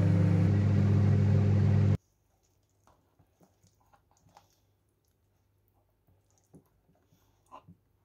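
Microwave oven running with a steady low hum, which cuts off abruptly about two seconds in. After that it is nearly quiet, with a few faint taps and clicks as cooked rice is stirred in a plastic tub.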